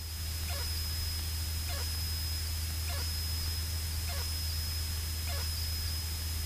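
Light aircraft cabin sound as heard through the headset intercom: a steady low engine hum with a thin steady high whine, and a faint falling chirp that repeats less than a second apart.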